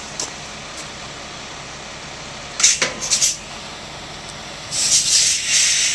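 Air hissing from a grain truck's air brakes: a few short sharp hisses about two and a half seconds in, then a longer loud hiss near the end, over a steady engine hum.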